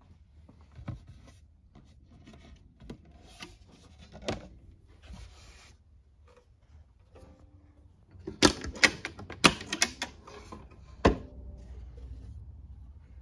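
Hinged instrument case with metal latches being opened and handled: scattered light clicks, knocks and rubbing, then a quick run of sharp clicks about eight to ten seconds in and one last sharp click about eleven seconds in.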